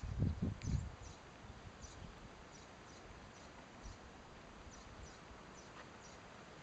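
Small birds chirping in a forest, short high falling notes repeated about twice a second over a faint steady background hiss. Low rumbling thumps come in the first second.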